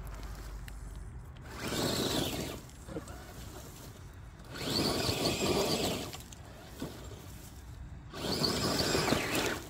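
Electric drive motor and gearbox of an Absima Sherpa RC scale pickup truck whining in three bursts of throttle, each spinning up and winding down again after about a second, with the tyres scrabbling at dirt and gravel.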